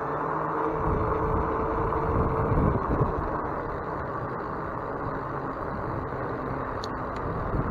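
Steady rush of wind over the microphone and tyre rumble from a bicycle rolling along a paved path. A thin whine rises out of it about half a second in and drops away in pitch near three seconds.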